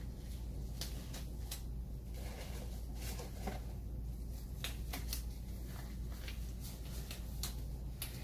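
Thin nitrile examination gloves being pulled on by hand: scattered light snaps and rustles over a steady low hum.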